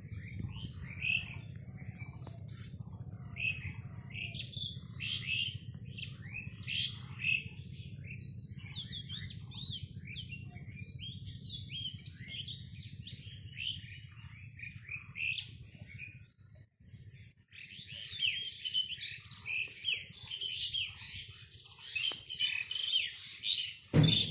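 Many small birds chirping in quick, overlapping calls over a low steady rumble, which drops out about two-thirds of the way through. A loud thump comes at the very end.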